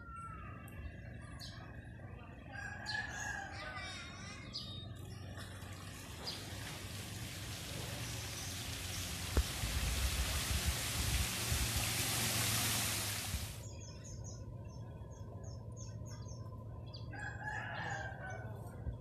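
A rooster crows about three seconds in and again near the end, with small birds chirping. In between, a motor scooter rides through shallow floodwater toward the microphone; its engine and the water off its tyres build to a loud rushing noise that cuts off suddenly.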